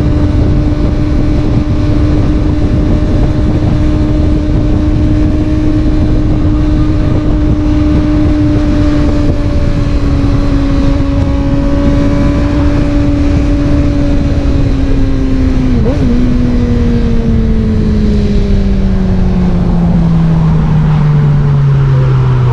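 Suzuki GSX-R600 inline-four through an M4 slip-on exhaust, running at steady revs over a heavy rush of wind. From about two-thirds in, the engine note falls steadily as the revs drop, with a brief wobble partway down.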